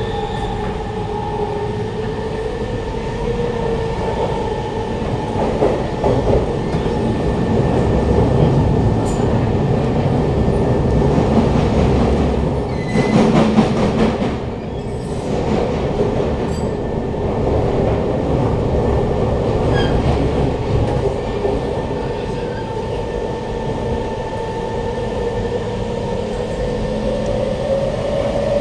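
Siemens C651 metro car in motion, heard from inside: a loud, steady whine from the traction motors over the running rumble of the wheels. About halfway through there is a short stretch of wheel clatter over trackwork, typical of the diamond crossover near Changi Airport. Near the end the motor whine rises in pitch.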